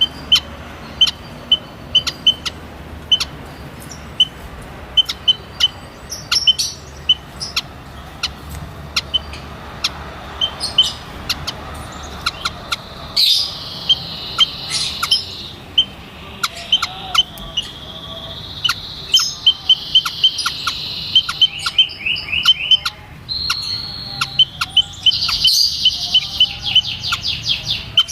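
White-headed munias calling: short, high peeping notes repeated a few times a second, turning about halfway through into louder, denser twittering with quick trills.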